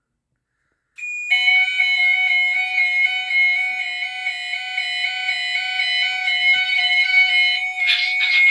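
GENT Vigilon addressable fire alarm system's sounders going into alarm about a second in: one high steady tone first, then several other steady tones from different sounders sounding together. A harsher, rasping noise joins near the end.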